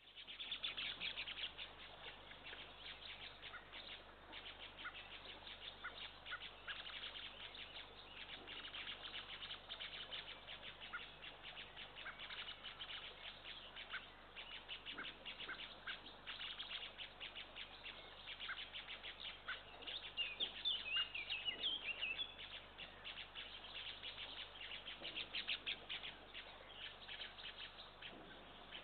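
Small songbirds chirping and singing continuously, rapid high chirps and trills, with a louder warbling phrase about twenty seconds in.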